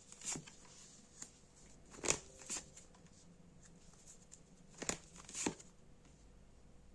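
Tarot cards being handled and laid on a table: about half a dozen soft card slaps and rustles, some in close pairs, spaced a second or more apart.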